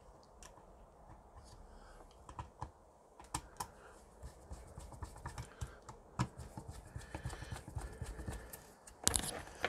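A screwdriver driving the screws that fasten the sanding pad onto a random orbital sander: scattered small clicks and scrapes of metal on plastic, with a louder clatter of handling near the end.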